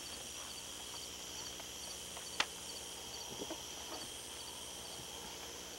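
Crickets chirping faintly over the steady hiss of an old Super 8 sound track, with a single sharp click about two and a half seconds in.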